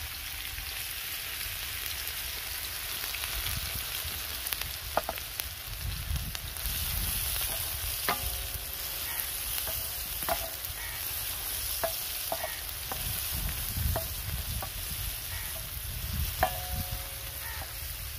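Chopped onion sizzling in hot oil on a wide flat tawa, a steady frying hiss. A wooden spatula stirs it, knocking on the tawa several times with short ringing taps.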